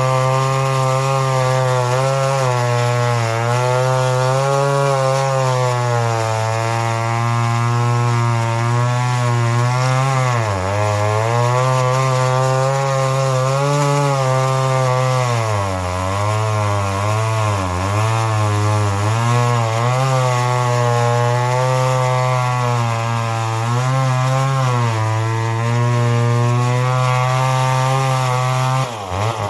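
Remington SL-11 two-stroke chainsaw with a full-skip chain running at high revs while cutting frozen wood. The engine note sags under load several times, and the revs drop near the end.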